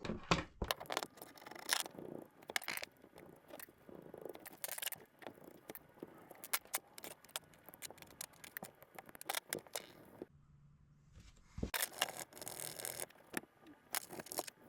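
Penn Monofil fishing reel being taken apart by hand: scattered small metal clicks, clinks and scrapes of reel parts and tools being handled, with a brief silence about ten seconds in.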